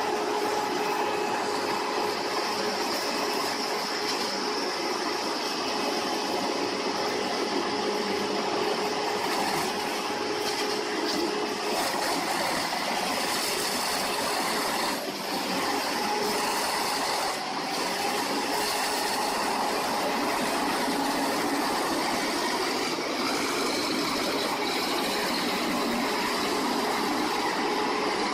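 Large industrial wood chipper running: a loud, steady mechanical drone with a constant high whine.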